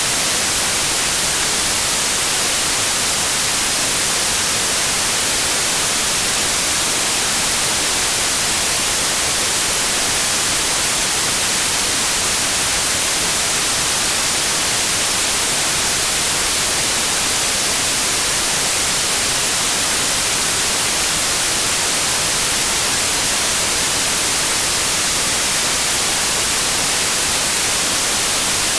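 Continuous synthetic white noise: a steady, even hiss, strongest in the high end, with no changes.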